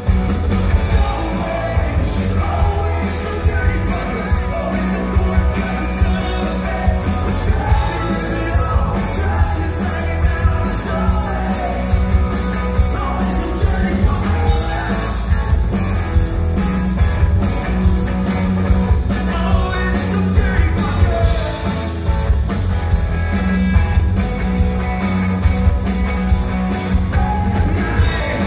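Live rock band playing a punk rock song: a man sings over electric guitars and a steady drumbeat.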